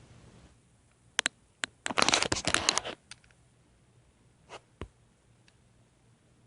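A few sharp crackles, then a dense burst of crackling and scratching lasting about a second, then two fainter clicks.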